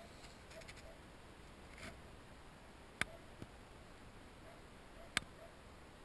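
Two sharp clicks about two seconds apart, with a fainter tick just after the first, over a quiet background hiss.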